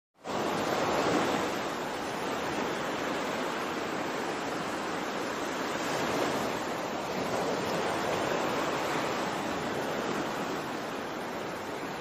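Ocean waves washing in a steady rushing noise that swells and eases slowly.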